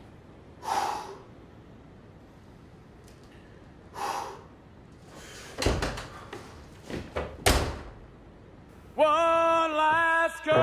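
A man breathes out heavily twice, then a wooden apartment door is worked: the handle clicks, the door opens, and it is pulled shut with a thud. About nine seconds in, music starts loudly with held, wavering tones.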